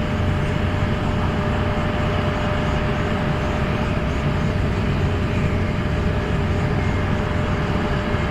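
Steady rumble of jet aircraft running on the ground, with a thin constant whine held throughout.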